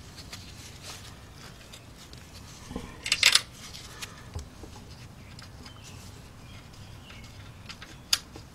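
Metal parts and hand tools being handled: short metallic clinks and rattles, loudest in a brief cluster about three seconds in, with a single sharp click near the end.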